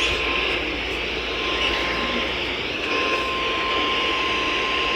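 Weather radio receiver hissing with static while the steady 1050 Hz warning alarm tone of a NOAA Weather Radio broadcast comes through. The tone fades out briefly about half a second in and again before the two-second mark, then holds. It marks the start of a severe thunderstorm warning.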